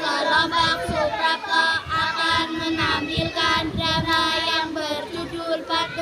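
Children singing a song with musical backing, high voices holding wavering notes over a steady low note.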